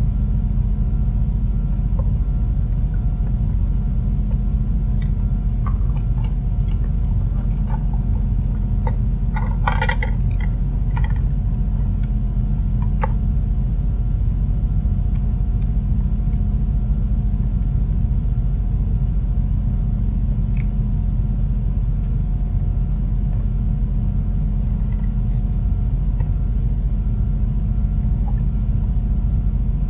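Steady low machine hum and rumble at an even level, with a few light clicks and taps from handling the circuit board, most of them bunched about ten seconds in.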